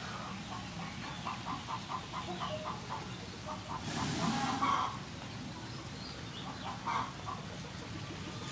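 Poultry calling in a quick run of short notes, about five a second. About four seconds in comes a louder short slurp of someone eating.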